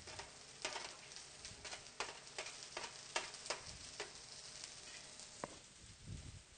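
Vegetables being stir-fried in a wok: a spatula scraping and knocking against the pan in irregular strokes, about two a second, over a faint sizzle.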